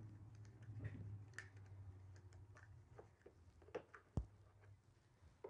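Near silence with faint scattered clicks and ticks of a hex key turning out a front-corner screw on a DeWalt DW735 thickness planer, and one soft low thump a little after four seconds.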